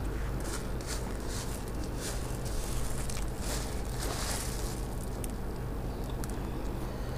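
Close-up eating sounds: puffed rice (muri) mixed with pea curry being mixed by hand on a steel plate and chewed, giving irregular soft crunches and crackles several times a second.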